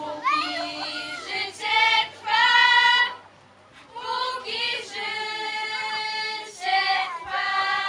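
A group of young voices singing in long held notes over a few phrases, with a short break about three seconds in.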